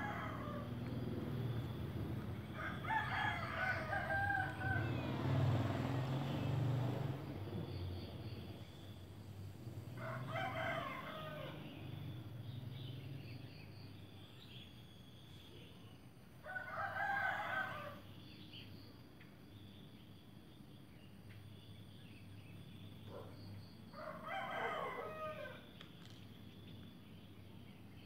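A rooster crowing again and again, one crow about every six seconds. A low steady rumble runs underneath for the first ten seconds or so.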